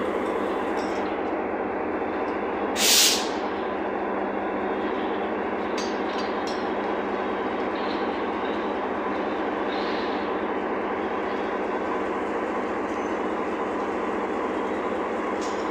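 Diesel locomotive running steadily at standstill, heard close up at the coupling. About three seconds in comes one short, sharp hiss of compressed air from the air brake hoses being worked between locomotive and coach.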